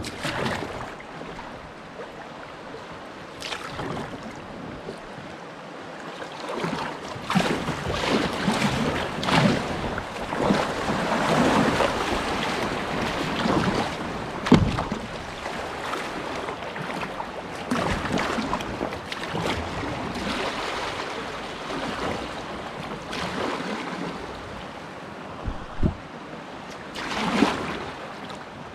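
Kayak paddle strokes dipping into a flowing river, with water splashing and rushing along the hull and wind on the microphone. The strokes come in irregular swells every second or two, with a sharp knock about halfway through.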